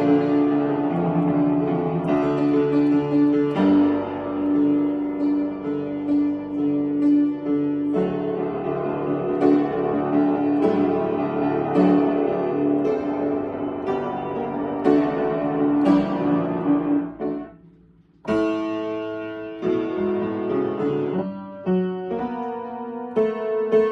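Solo piano playing, dense and continuous with many struck notes; the playing breaks off briefly about eighteen seconds in, then starts again.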